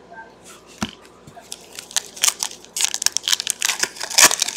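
Foil trading-card pack being torn open and crinkled by hand: a run of sharp, papery crackles, thickest in the second half.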